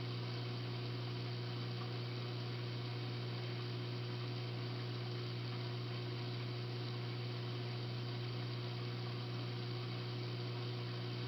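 Steady electrical hum from reef aquarium equipment such as pumps, with an even hiss beneath it and no change in level.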